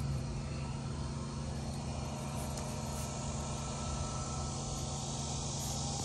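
A motor running steadily with an even low hum.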